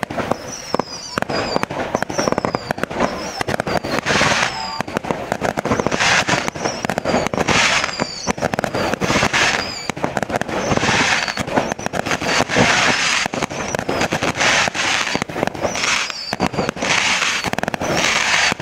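Fireworks going off in quick succession: a dense, continuous crackle of bangs and pops, with louder flurries every couple of seconds and short falling whistles now and then.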